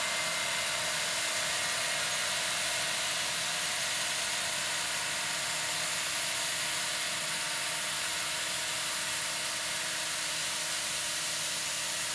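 New Holland T7.290 tractor's six-cylinder diesel running steadily under load while pulling a Horsch Serto 12 SC pneumatic seed drill, with a steady high hiss over the engine.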